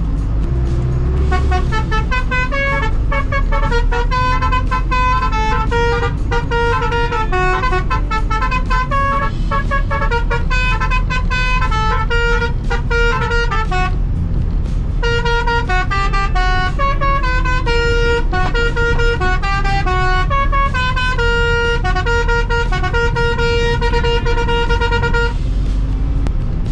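A truck's multi-tone musical 'ong vàng' horn playing a melody of stepped notes in two long runs with a short break in the middle, over the steady rumble of a truck engine.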